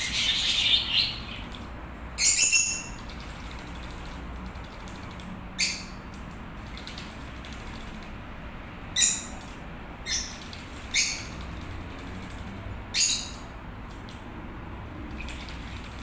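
Javan myna bathing in a shallow metal pan of water, beating its wings and splashing in short sharp bursts. There are about seven bursts, a second to a few seconds apart, and the first is the longest at about a second.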